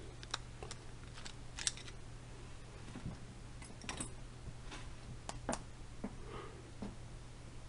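Scattered light metallic clicks and taps from an American KC-40 padlock and a small screwdriver being handled while the lock is taken apart, over a faint steady low hum.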